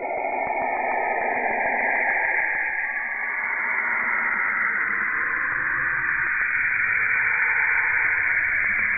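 Saturn's radio emissions converted into sound: a dense, rushing hiss with drifting pitch bands. A lower band fades and a higher, brighter hiss takes over about two seconds in.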